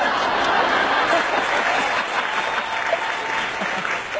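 Audience applause, a steady dense clapping that begins to thin out near the end.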